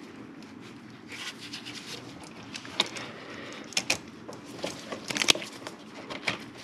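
Hands in gloves working rubber coolant and vent hoses and a spring hose clamp with hose clamp pliers: rubbing and rustling, with several sharp clicks of metal and plastic parts.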